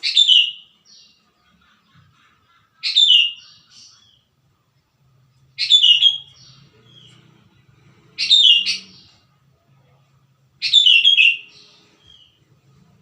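Sooty-headed bulbul (kutilang) singing: five short phrases about every two and a half seconds, each a quick run of notes falling in pitch followed by a short separate note.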